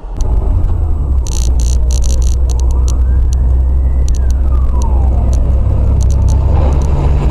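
A car driving, with a steady low road and engine rumble as a dashcam records it from inside. Short clicks and crackles come through, and a faint wailing tone rises and falls once in the middle.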